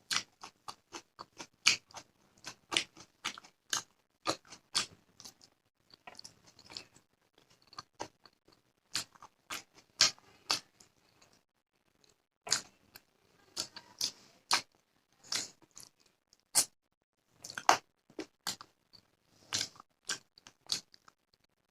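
Close-miked chewing of a mouthful of rice and fish curry: a quick run of wet mouth clicks and smacks, two or three a second, easing off briefly twice.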